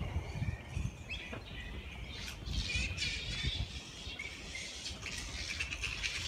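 A roosting colony of flying foxes calling in the trees: a constant jumble of short, high-pitched squeaks and chatter.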